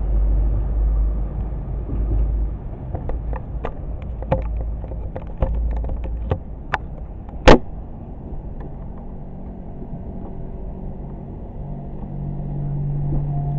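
Diesel multiple unit pulling away, its low engine rumble strong at first and fading after a couple of seconds as it recedes. A run of sharp clicks follows, then one much louder crack about seven and a half seconds in, leaving a quieter steady hum.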